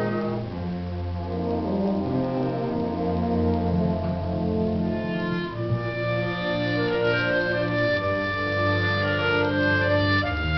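Symphonic concert band playing, brass to the fore: low held chords, with higher parts entering about halfway through.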